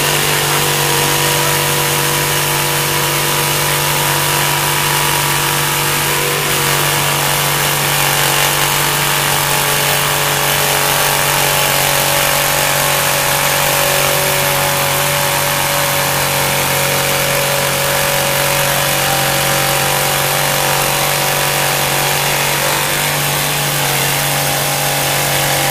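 Jigsaw with a Bosch T118A bi-metal blade sawing through steel plate, running steadily and evenly throughout. The blade is burning up in the cut.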